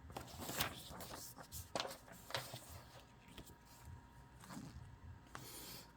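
Faint handling noises of the model's packaging and paperwork being turned over: scattered soft rustles and light clicks.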